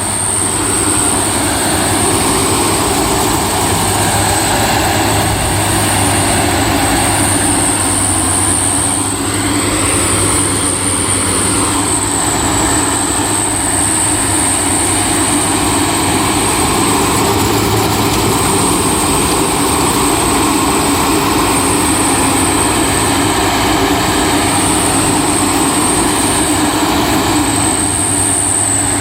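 Rice combine harvester running steadily: a constant engine hum under dense machinery noise, with a high whine that wavers slightly in pitch.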